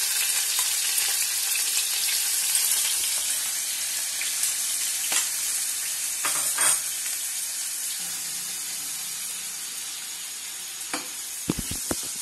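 Chopped onions sizzling as they fry in hot refined oil in a kadhai, a steady hiss that slowly dies down. A few sharp knocks come near the end.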